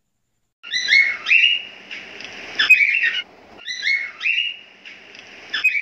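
Bird-like chirping sound effect of a subscribe-and-like animation: a short run of high whistled chirps over a soft rushing noise, starting about half a second in and then repeated the same way a second time.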